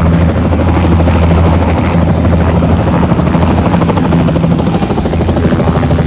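Helicopter in flight: rapid, even rotor blade chop over a steady low engine drone, loud and constant.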